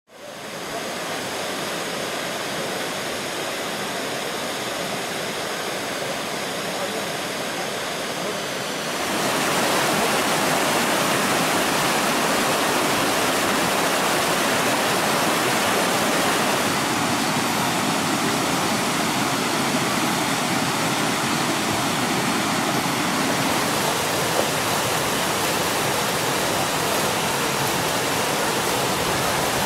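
Spring water gushing out over mossy rocks in small cascades and rushing down a shallow stony stream. It is a steady rush of water that gets louder about nine seconds in.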